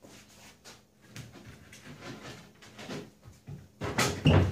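A large plywood wall panel being shifted and bumped against a plywood trailer deck: scattered light knocks and scuffs, then two loud wooden thumps near the end.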